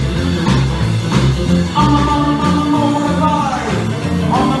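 Live rock and roll band playing: electric guitar, bass guitar and drum kit with a singer, over a steady repeating bass line, with a long held note from about two seconds in that slides down at its end.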